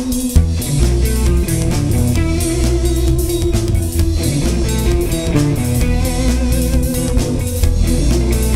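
Rock band playing: held guitar notes over bass guitar and a drum kit with regular cymbal strikes.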